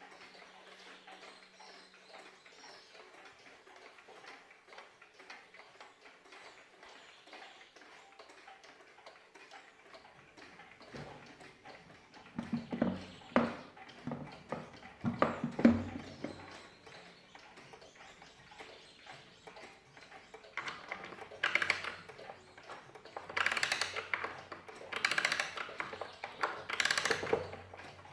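Waterbury Gothic alarm clock ticking faintly. About ten seconds in come louder clicks and knocks, and near the end a run of bursts of dense mechanical clicking about every second and a half.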